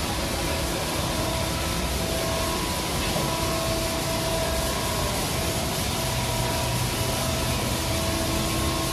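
Hydraulic-drive friction rollover car wash machine running over a car: a steady hiss of water spray with a machinery hum and a faint steady whine.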